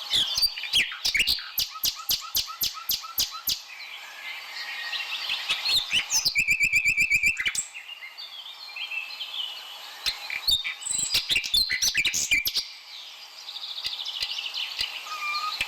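Several birds chirping and singing at once, with overlapping short calls and whistles. A run of sharp, evenly spaced ticks comes in the first few seconds, and a fast trill comes about six seconds in.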